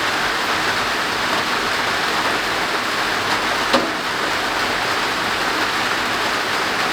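Heavy rain pouring steadily on a noisy roof overhead, with a single sharp tap a little past halfway.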